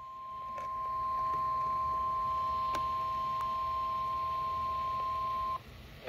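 NOAA Weather Radio warning alarm tone, the steady 1050 Hz tone that heralds a warning, sounding through a Midland weather alert radio's small speaker. It swells over the first second, holds steady with a fainter lower tone beneath it, and cuts off about five and a half seconds in.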